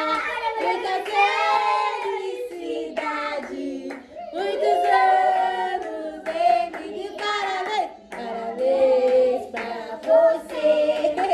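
Several voices, women and children, singing together to hand clapping.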